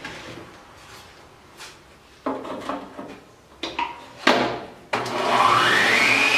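Plastic stand mixer: a few clunks as the bowl and tilting head are set in place, then about five seconds in the motor starts and its whine rises in pitch as it speeds up, the whisk beating egg yolks, sugar and oil.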